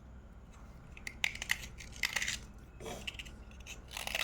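Slate pencil being bitten and chewed close to the microphone: short clusters of sharp, dry crunching cracks, coming in a few bursts after a quiet first second.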